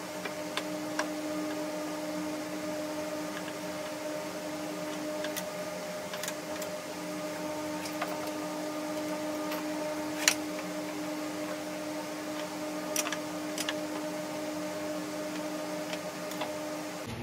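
A steady mechanical hum with a constant low tone, over scattered light clicks and taps from a steel rule handled on a wooden end-grain board; one sharper tap comes about ten seconds in.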